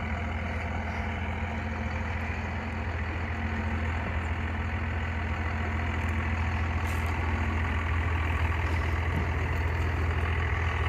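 Dodge Ram pickup's engine running at low, idle-like revs as the truck crawls down a steep dirt slope; a steady low hum that grows gradually louder as it comes closer.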